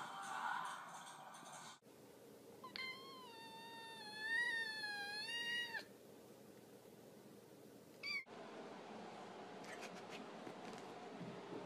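A domestic cat's long, drawn-out meow lasting about three seconds, wavering in pitch, followed a couple of seconds later by a brief, high call. Near the end come faint rustling and a few light taps.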